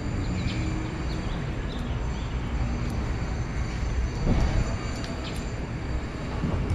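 Steady city street noise: a low traffic rumble with a few faint clicks.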